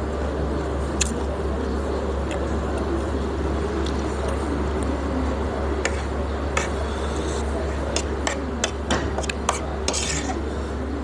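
Metal spoon and fork clinking and scraping against a ceramic plate, in scattered sharp clicks that come more often in the second half. A steady low hum runs underneath.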